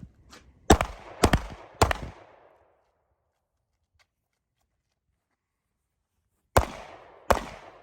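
Handgun gunshots: three quick shots about half a second apart, a pause of about four and a half seconds, then two more, each with a short echoing tail.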